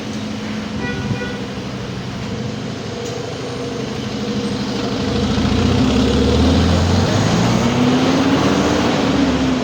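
A large vehicle's engine running close by, growing louder about halfway through, its pitch rising near the end, over street noise.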